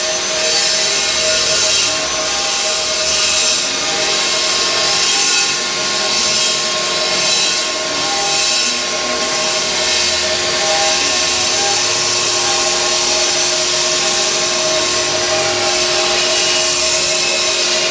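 A stone-carving CNC router's spindle running and cutting stone: a steady whine over a dense grinding hiss.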